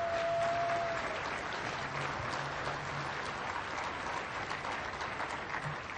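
Audience applauding in a large hall, a steady mass of clapping, with a single held tone during the first second.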